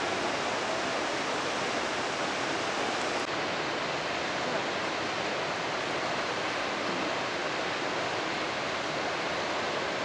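Steady rushing roar of the Rhine Falls: a large volume of water pouring down and churning into white water, an even, unbroken noise.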